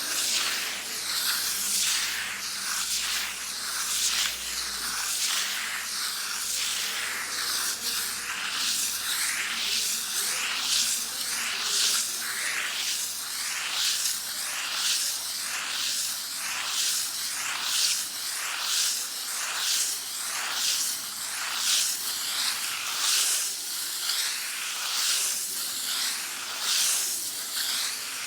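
Sandpaper rubbed by hand against a wall in long back-and-forth strokes, a dry hissing scrape that swells and fades about once a second.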